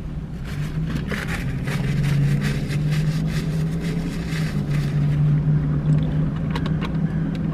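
A steady low hum inside a parked car, like an idling engine or the climate fan, with paper crinkling and rustling over the first few seconds as napkins are handled.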